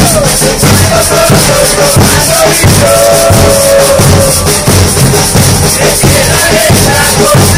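A supporters' street band of Baldassare bass drums beating a steady, fast rhythm, with small cymbals mounted on the drums crashing along. A group of men chant along, and the sound rings loud and close inside a bus.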